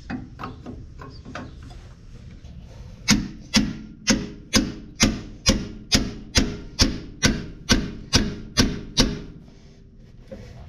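Hammer striking a pickle fork wedged into a stuck steering joint, driving the fork in to split the joint apart. A few light taps come first, then about fourteen sharp, ringing metal blows at roughly two a second, stopping near the end.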